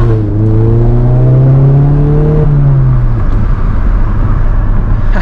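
A 2017 Mazda 3 GT's 2.5 L four-cylinder engine, breathing through a Borla S-Type cat-back exhaust, pulling under acceleration with a slowly rising note. About three seconds in the note drops away as the throttle comes off, leaving a low exhaust rumble and road noise.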